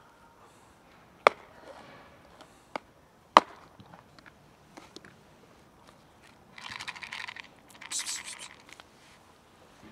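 A cat crunching dry kibble: a few sharp cracks in the first few seconds, then two longer bursts of crunching near the end.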